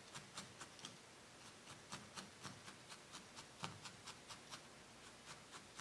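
Felting needle in a pen-style handle stabbing repeatedly into wool, tacking a folded piece of wool onto a needle-felted chick's body. It makes faint, slightly irregular ticks, about three to four a second.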